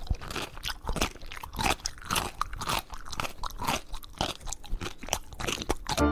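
A cat chewing and biting on a white knit sneaker: an irregular run of crunching bites, about three a second.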